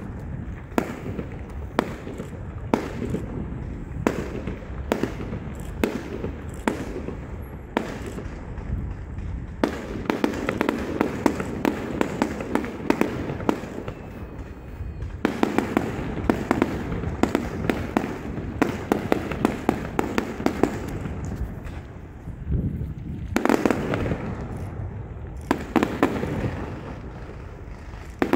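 Aerial fireworks bursting overhead: a steady series of sharp bangs, about one or two a second, then from about ten seconds in dense salvos of many rapid crackling pops, with loud clusters near the end.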